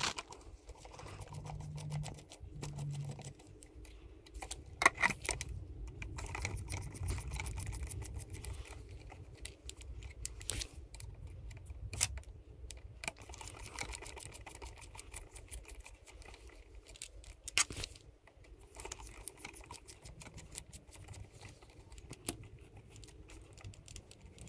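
Scattered light clicks and ticks of a small hex driver and the plastic parts of an Axial SCX24 micro crawler being handled, as small screws are worked out of the chassis.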